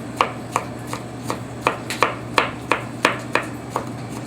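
Kitchen knife chopping on a cutting board, dicing bell pepper in quick, even strokes of about three cuts a second.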